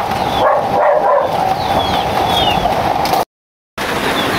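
Animal calls with short high bird chirps over a steady background hiss, cut off by a sudden half-second of silence about three seconds in.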